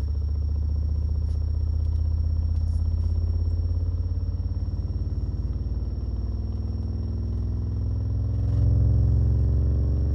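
Digital Designs 610E 10-inch subwoofer, unmounted in free air, playing the start of a 10-to-40 Hz frequency sweep: a deep hum that slowly rises in pitch and grows a little louder near the end. It plays cleanly and quietly, with no mechanical noise from the cone.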